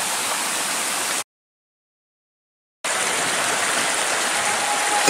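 Steady rushing noise of flowing river water, cutting out to dead silence for about a second and a half a little over a second in, then resuming.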